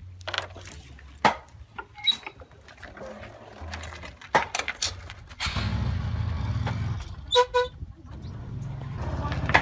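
A motor vehicle passing with a low rumble, and two short horn toots a little after the middle, among scattered sharp knocks.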